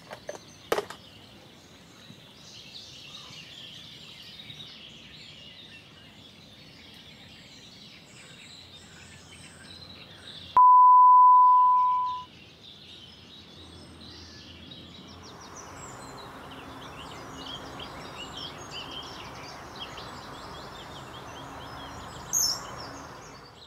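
Small birds singing and chirping. About ten seconds in, a single loud steady electronic beep holds one pitch for about a second and a half, then fades.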